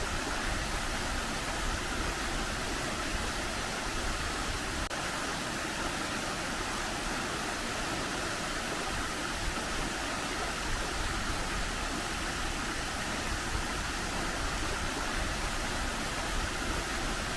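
Steady rushing of water falling at the Kapas Biru waterfall, an even, unbroken roar of noise.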